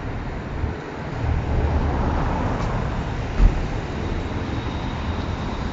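Outdoor road traffic noise: a steady low rumble that swells about a second in. A single dull thump comes about three and a half seconds in.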